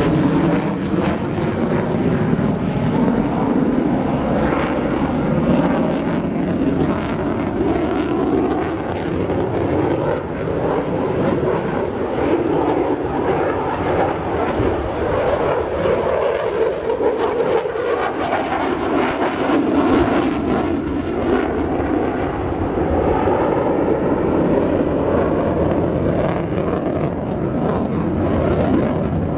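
Twin F100 turbofan engines of a JASDF F-15J fighter at high power with afterburners lit during an aerobatic manoeuvre: a loud, continuous jet roar that rises and falls a little as the jet turns.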